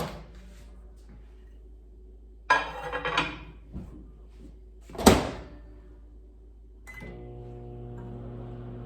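Microwave oven being loaded and started. A clatter a couple of seconds in, then the door shuts with a sharp thunk about five seconds in. A short beep follows, and the oven starts running with a steady hum on high power.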